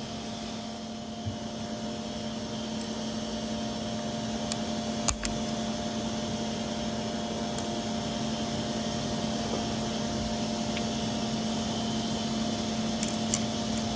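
Steady mechanical hum with a constant low tone, over which tools click lightly on metal, with one sharp click about five seconds in, as a snap ring is worked off a manual transmission shaft.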